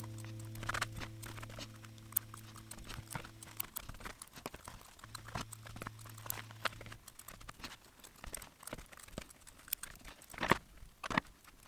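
Faint, irregular light taps and clicks, a few louder ones near the end, under the last held tones of music that fade out in the first few seconds.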